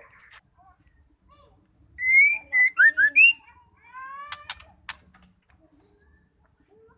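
Female white-rumped shama singing: a loud, quick phrase of short whistled notes that slide up and down, starting about two seconds in. A second or so later come a few rising notes mixed with sharp clicking ticks.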